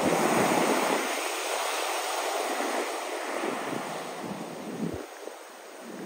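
Ocean surf breaking and washing up the beach in a steady rush, with some wind on the microphone; the rush grows quieter toward the end.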